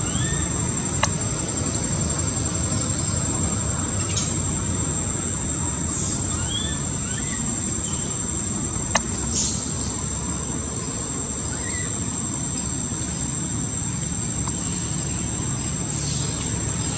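Steady high-pitched insect drone, with a few short rising chirps scattered through it and a constant low rumble of background noise.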